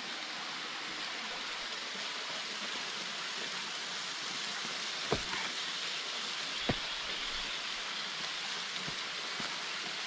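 Small waterfall with a thin dry-season flow splashing into a rock pool: a steady, even rush of water. Two short clicks about five and seven seconds in.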